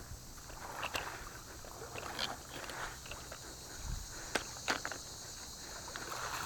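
Shot freshwater drum splashing at the water's surface as it is hauled in on a bowfishing line, with scattered sharp clicks and knocks, the loudest two about four and a half seconds in. A steady high insect drone runs underneath.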